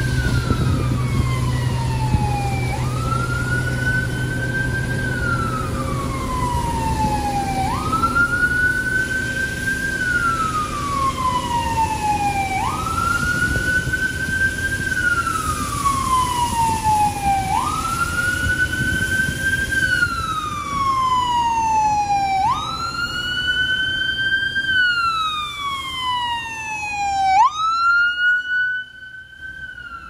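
Ambulance siren on wail, rising quickly and falling slowly about every five seconds, loudest as the ambulance passes close by near the end.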